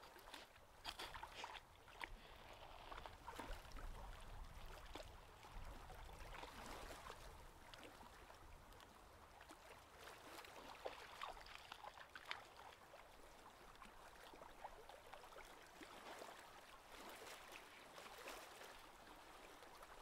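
Near silence: faint outdoor ambience with scattered soft ticks and crackles.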